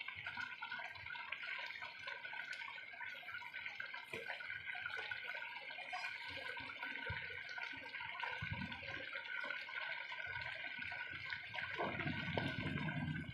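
Pork humba simmering in a pot: thick, dark sauce bubbling and popping steadily with many small crackles.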